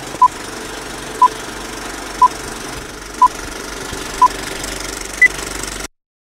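Film countdown leader sound effect: five short beeps a second apart, one per number, then a single higher beep, over a steady rattling hiss like an old film projector running. The sound cuts off abruptly near the end.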